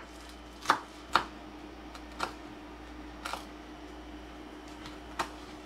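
Chef's knife chopping green onions and fresh herbs on a wooden cutting board: about five separate knocks of the blade on the board, spaced unevenly.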